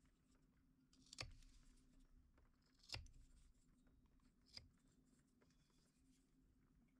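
Carving knife slicing along the edges of a wooden block: three short, crisp cuts spread over a few seconds, chamfering off the block's sharp edges.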